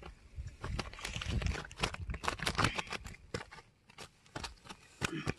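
Two freshly landed tilapia flapping on grass and dry earth: a rapid, irregular patter of slaps and rustles that thins out after about three seconds.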